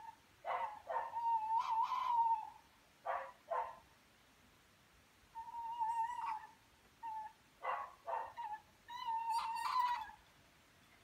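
Unidentified animal calls: a wavering, whining tone alternating with pairs of short, sharp calls, repeating every few seconds.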